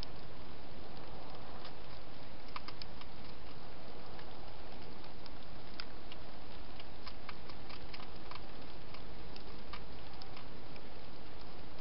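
Wild hedgehog eating from a dish inside a plastic feeding box: small, irregular clicks, several a second, over a steady hiss.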